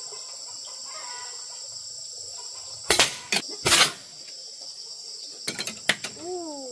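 A bow shot: loud sharp snaps and knocks about three seconds in as the arrow is loosed and strikes, with a few lighter clicks later. Crickets chirr steadily throughout.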